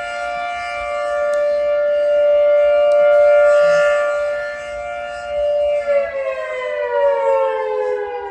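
Federal 2T22 dual-tone outdoor warning siren sounding its two-tone chord at a steady pitch, swelling and fading in loudness, then starting to wind down about six seconds in, its pitch falling steadily as the rotors slow.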